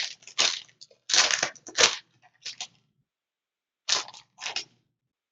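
Plastic packaging being torn and crinkled open by hand, in several short crackling bursts with a pause of about a second before the last two.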